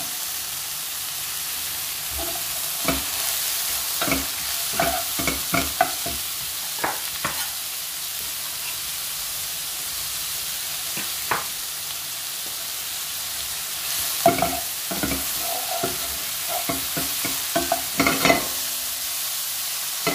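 Button mushrooms frying in a pan with a steady sizzle as chopped red onion goes in. Two spells of short knocks and scrapes come from the knife and olive-wood spatula against the pan, one a few seconds in and one in the second half.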